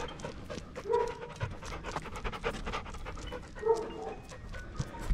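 A dog panting hard on a walk, one short breath after another, with two brief higher sounds about a second in and near four seconds in.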